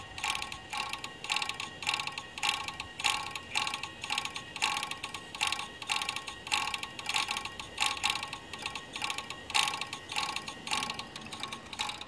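Maxtor 7120AT 120 MB hard drive running with a steady whine and loud, rhythmic mechanical chatter about twice a second. It is the noise of a badly failing drive.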